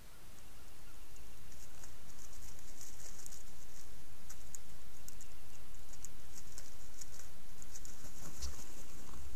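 Strutting wild turkey gobbler giving a short spit and a low drumming hum about eight and a half seconds in, with another low drum near the end. Faint high-pitched ticking and clicking runs over a steady hiss throughout.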